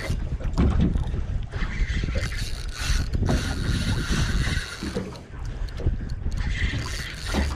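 Spinning reel being cranked under the load of a hooked fish, its gears whirring, with wind buffeting the microphone.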